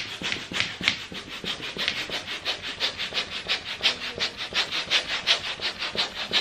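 Handheld balloon pump worked in quick, even strokes, about four a second, each stroke a short rush of air as it inflates a long twisting balloon.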